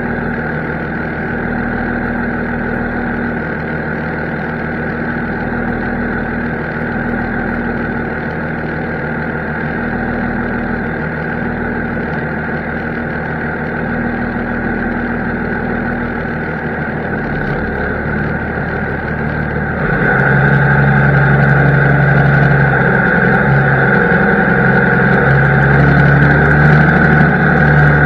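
Tractor diesel engine running steadily. About twenty seconds in it gets louder and its note steps up.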